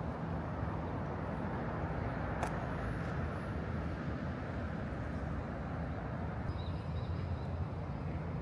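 Steady hum of city road traffic from a wide multi-lane avenue, with a single sharp click about two and a half seconds in.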